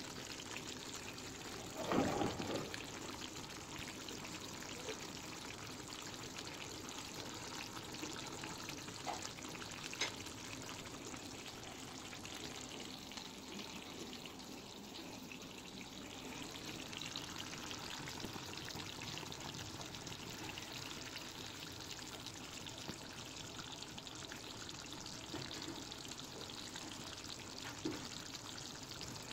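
Chicken curry simmering in a pan on a gas burner: a steady, quiet bubbling and hiss as the gravy cooks down. A brief knock about two seconds in and a sharp click about ten seconds in.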